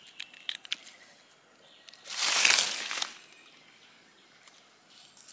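A rustle of dry leaf litter and undergrowth being brushed through, lasting about a second near the middle, after a few light clicks and snaps.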